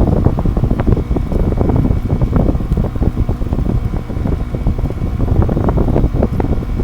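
Wind buffeting the microphone: a loud, uneven low rumble with crackling gusts.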